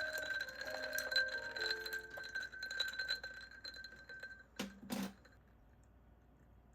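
Gentle background music with chime-like ringing notes, ending about four and a half seconds in; then two short knocks about half a second apart, followed by quiet room tone.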